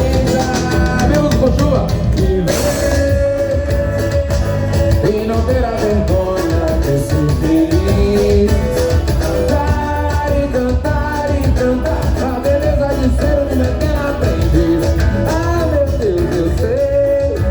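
Music with a steady beat and a melody line.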